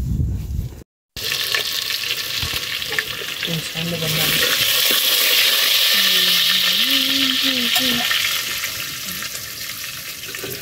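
Hot oil sizzling and frying in a metal pot over an open wood fire, with a metal ladle stirring it. The steady hiss swells in the middle and eases off near the end.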